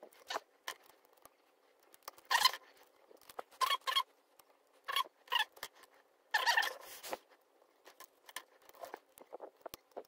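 Lock picking sped up eight times: a hook pick and tension wrench scraping and clicking on the pins of a five-pin cylinder lock, heard as short, high, squeaky chirps and scratches in irregular bursts.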